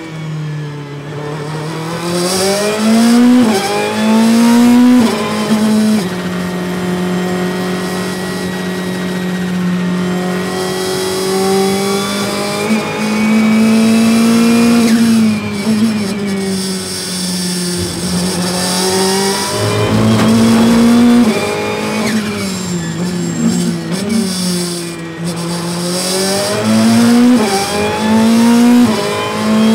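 Ferrari 488 GT Modificata's twin-turbo V8 heard from inside the cockpit at racing pace. It revs hard out of a slow corner with quick upshifts, pulls long in fourth gear, then drops in pitch under braking with fast downshifts before accelerating again.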